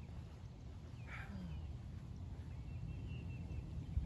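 Quiet outdoor ambience: a steady low rumble with a few faint bird chirps, one about a second in and a thin high trill around the middle. A single short knock near the end.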